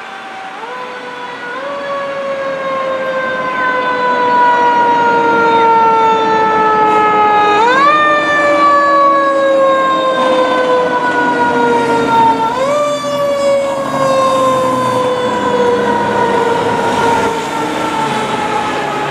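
Federal Q mechanical siren on a fire engine responding code 3, wound up repeatedly: each time the pitch jumps up quickly and then slowly coasts down. It grows louder over the first few seconds as the truck approaches.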